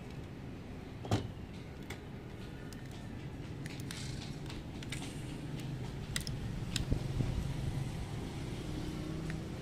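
Scattered light clicks and taps of a diecast metal model car being handled and its opening doors worked, the sharpest click about a second in, over a steady low hum.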